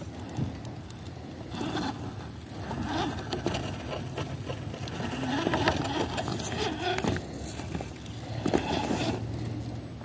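Redcat Everest 10 RC rock crawler's electric motor and gears whining, rising and falling in pitch as the throttle is worked over concrete rubble, with scattered knocks and clatters of tyres and chassis against the rocks.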